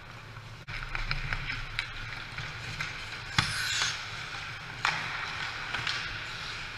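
Ice hockey play close to the goal: skate blades scraping on the ice and sharp clacks of sticks and puck, the loudest about three and a half seconds in followed by a short skate scrape, with another clack about five seconds in, over a steady low hum.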